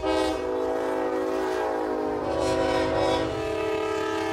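Diesel locomotive air horn sounding a long, sustained chord over a low engine rumble, its pitch stepping down slightly about two seconds in.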